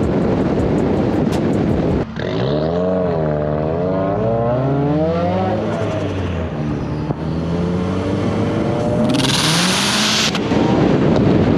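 Subaru WRX turbocharged flat-four heard from the hood while driving: heavy wind rush at first, then the engine note rising and falling in pitch and climbing steadily under acceleration. A brief loud hiss comes about nine seconds in, and the wind rush returns near the end.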